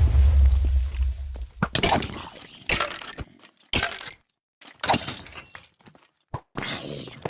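A run of sharp cracks and crashes, roughly one a second, some with a short rattling tail, after a heavy low rumble at the start.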